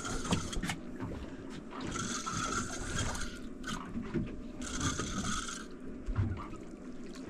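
Spinning fishing reel being cranked in three bursts of about a second each, a gear whir, as a hooked fish is reeled up on a bent rod.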